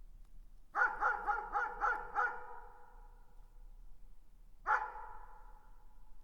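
A dog barking: a quick run of six barks about a second in, then a single bark near the end, each run trailing off in an echo.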